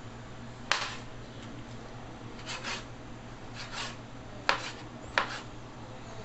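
Kitchen knife dicing smoked bacon on a plastic cutting board: a sharp knock of the blade on the board about a second in and two more near the end, with two softer cutting strokes between.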